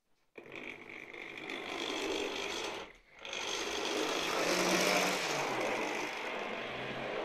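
Hornby OO gauge model train running on the track, its small electric motor whirring with the wheels on the rails. It starts suddenly just after the beginning, cuts out briefly about three seconds in, then picks up again.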